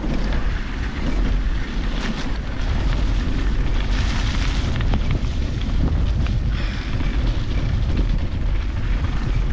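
Strong wind buffeting a handlebar-mounted action camera's microphone, a loud steady rumble, with scattered knocks and rattles from the mountain bike running over rough trail.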